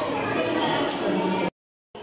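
Crowd of visitors chattering in a large, reverberant hall, with music playing underneath. The sound cuts off abruptly about one and a half seconds in, then comes back more quietly.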